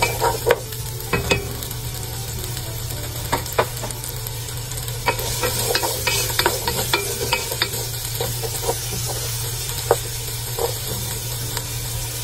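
Diced carrots and potatoes frying in hot oil in a pan, sizzling, with the clicks and scrapes of a wooden spatula stirring them. A steady low hum runs underneath.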